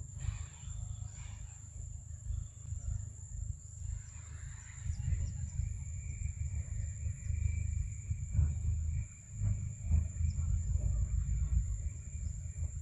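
Forest ambience: a steady high-pitched insect drone, joined by a lower insect buzz from about four seconds in until near the end, over a low, unsteady rumble, with a few soft clicks.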